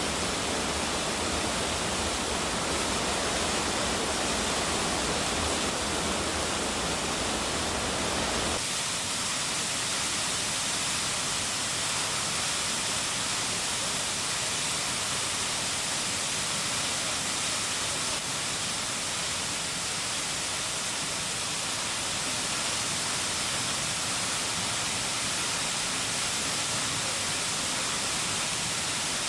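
Waterfall: a steady rush of falling water. About eight seconds in it changes abruptly, losing its deep rumble and turning thinner and more hissy.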